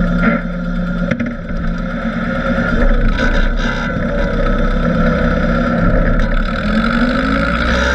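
Tractor engine running steadily, its revs rising briefly near the end.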